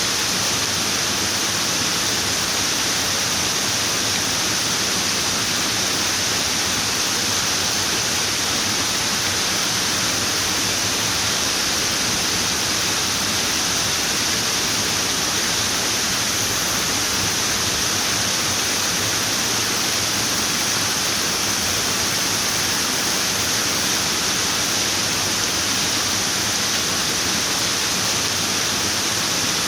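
Running water: a steady, even rushing hiss that never changes.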